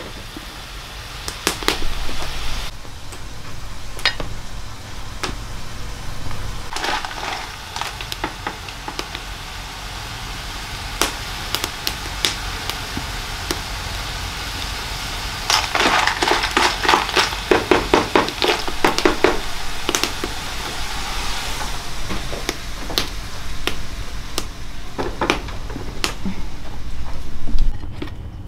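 Irregular clicks, knocks and clattering of hard objects being handled, busiest in a spell in the middle and again near the end, with the loudest knock just before the end.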